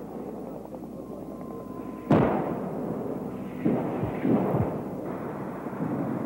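Explosions going off in combat: a loud blast about two seconds in, then two more close together near four seconds, each trailing off in a rumble, over continuous battle noise that grows toward the end.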